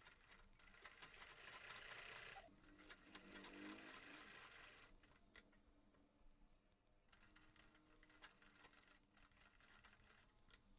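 Sewing machine running faintly, a fast, even patter of stitches as it sews a facing strip onto a neckline. It stitches for about five seconds, stops briefly, then runs again for about two seconds.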